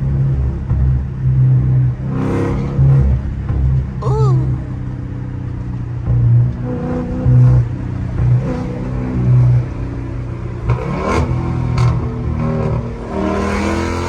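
Catless Dodge Scat Pack's 392 HEMI V8 running on the move, its revs climbing once about eleven seconds in, with music playing underneath.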